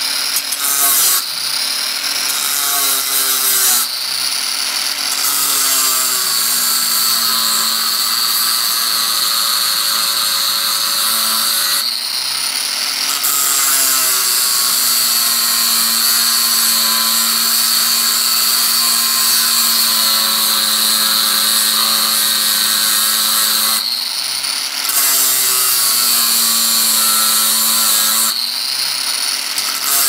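Angle grinder with an abrasive cut-off disc cutting through the steel shell of a refrigerator compressor. A steady high whine over gritty cutting noise, its tone changing briefly several times as the disc's grip on the metal varies.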